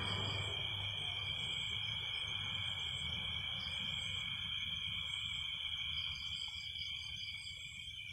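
Crickets trilling steadily in a night chorus, two continuous high trills layered with fainter pulsing ones above them. A low rumble underneath is strongest in the first second and then fades.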